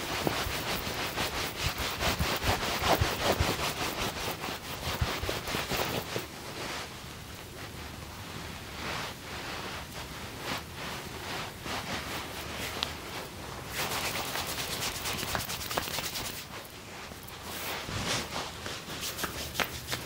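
Hands rubbing quickly during a massage: a fast run of scratchy rubbing strokes, heaviest in the first several seconds, easing off, then picking up again toward the end.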